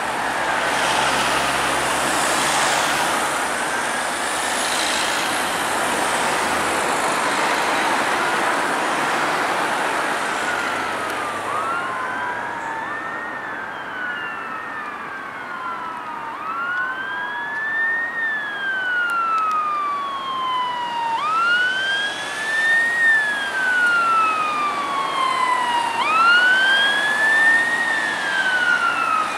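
Road traffic passing close, then from about twelve seconds in the wail sirens of approaching fire and rescue vehicles. Two sirens overlap out of step, each rising quickly and falling slowly over about four to five seconds, and they grow louder toward the end.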